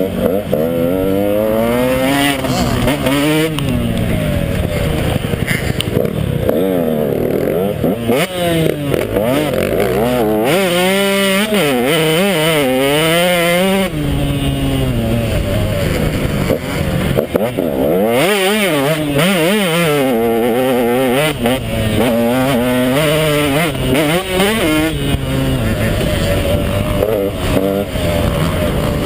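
KTM 150 XC two-stroke dirt bike engine revving hard and easing off again and again, its pitch climbing and dropping continuously as the throttle is worked and gears are changed over rough ground.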